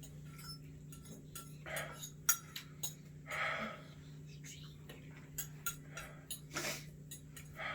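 An eating utensil clicking and clinking against a dish of spicy noodles, with a few short breathy mouth sounds from the eater, about two seconds in, in the middle and near the end.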